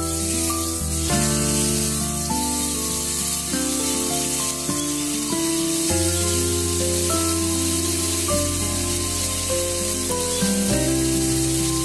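Marinated beef strips sizzling steadily in hot oil in a frying pan, over background music of held notes.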